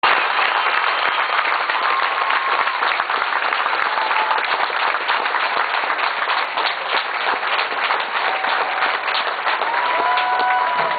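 Crowd applauding: dense, steady clapping from a large audience.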